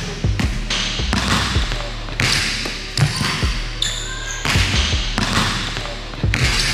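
Basketball bouncing on a hardwood gym floor as a player dribbles in and shoots a layup, over background music with a steady bass line.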